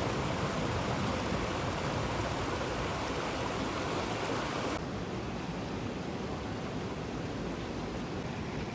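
Steady rushing noise of running water, even and without clear individual sounds; it drops a little in level suddenly about halfway through.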